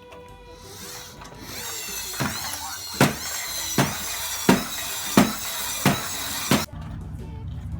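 Packaging of a toy fire truck's box being torn open: a squealing rip broken by six sharp snaps, one roughly every 0.7 s, that starts after a second or so and cuts off suddenly near the end.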